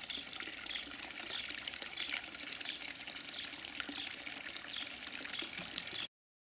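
Water trickling steadily into a small garden pond from a fountain statue, with a short high falling chirp repeating about every two thirds of a second. The sound cuts off suddenly about six seconds in.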